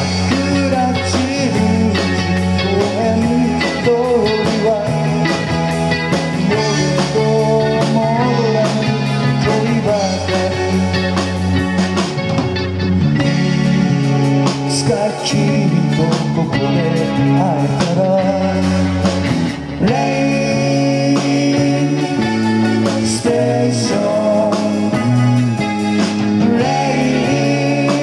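Live band playing amplified music on electric guitars, drums and keyboard.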